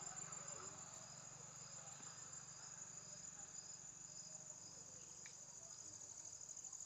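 Insects trilling steadily in a continuous high-pitched drone, with a fainter second call pulsing about twice a second.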